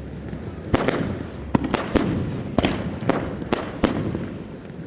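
Fireworks display: aerial shells bursting overhead in a rapid irregular series of about eight sharp bangs, each trailing off in an echoing rumble.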